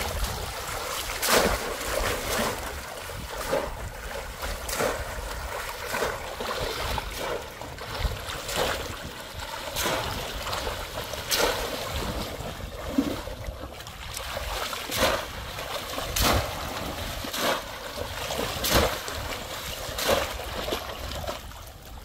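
Shallow floodwater splashing and sloshing as a man wades through a flooded paddy, with a sharp splash about once a second.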